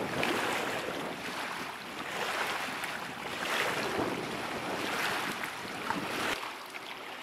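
Wind blowing over the microphone along with lapping water, an even rushing noise that swells and eases; the low rumble of the wind drops away about six seconds in.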